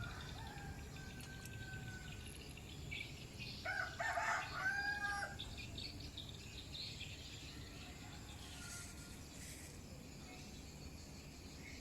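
A rooster crowing once, loudest about four seconds in, with a fainter drawn-out crow near the start and scattered chirps of other birds.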